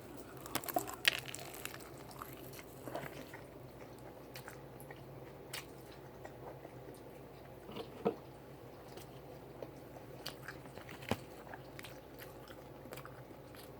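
Close-miked eating: scattered crunchy bites and chewing, with the sharpest crunches about a second in and about eight seconds in.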